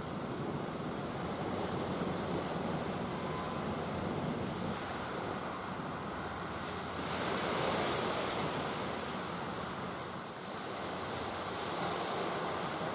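Sea waves washing steadily, with wind buffeting the microphone; the wash swells a little about halfway through.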